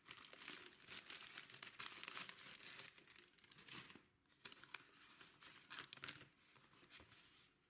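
Faint crinkling and tearing of plastic packaging being handled and opened, in irregular bursts with a short lull about four seconds in.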